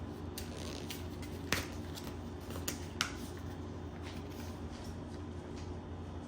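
Fabric placemats being handled and laid on a table: light rustling with a few short taps, the sharpest about a second and a half in and near three seconds, over a steady low room hum.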